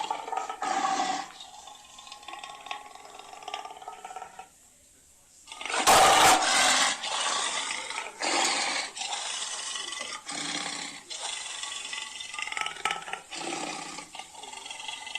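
Made-up dragon roar and growl sound effects: a run of separate rasping roars and growls with short gaps between them, a brief pause about four and a half seconds in, and the loudest roar coming about six seconds in.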